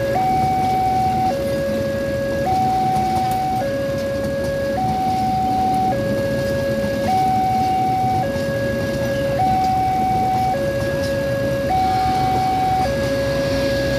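Electronic railway level-crossing warning alarm from a pole-mounted horn loudspeaker, sounding a two-tone ding-dong: a higher and a lower tone alternate, each held about a second, repeating without a break. Underneath runs the steady rumble of a passenger train passing over the crossing.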